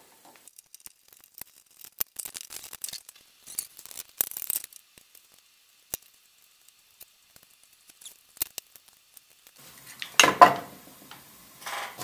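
Small clicks, taps and rustles of electrical wiring being handled: stiff cable conductors and a plastic electrical box and outlet moved about on a wooden bench. About ten seconds in there is one louder knock.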